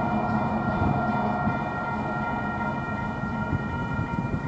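Long freight train pulling away: a steady low rumble from the locomotive and cars, with several high tones ringing steadily over it.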